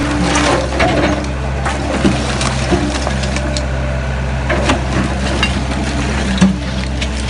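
JCB 130 W wheeled excavator's diesel engine running steadily, with scattered knocks and clatters of broken brick as the bucket works through the rubble pile. A sharp knock near the end is the loudest.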